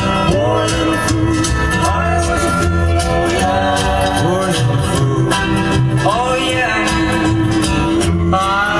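Music: a song with singing over instrumental backing and a steady beat.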